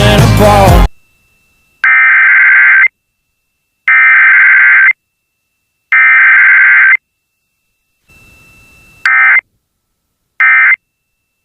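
Emergency Alert System SAME data tones for a Required Weekly Test: three harsh, screeching header bursts of about a second each, sent about two seconds apart, then two much shorter end-of-message bursts near the end.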